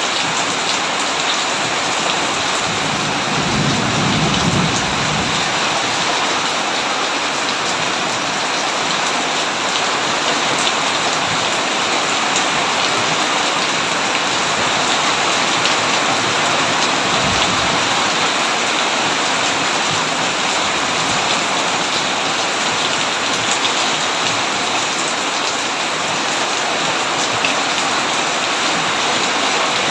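Heavy, steady rain falling in a dense, even hiss, with a brief low rumble of thunder about four seconds in.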